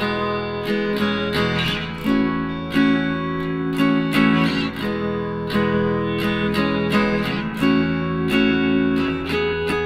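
Background music: acoustic guitar strumming in a steady, even rhythm.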